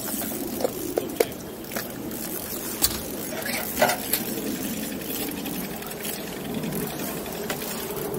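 Spinning reel being cranked to bring in a hooked fish: a steady mechanical whirring, with a few sharp clicks or knocks against the boat.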